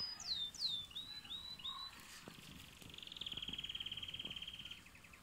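A small songbird singing: a few quick down-slurred whistles, then a fast, even trill lasting a couple of seconds.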